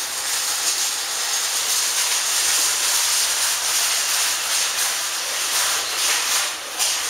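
A steady, loud hiss of rushing noise with no clear pitch.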